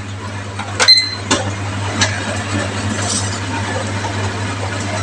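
Oven running with a steady low hum. A few sharp clinks of metal or glass come about a second in and again near two seconds, one of them ringing briefly.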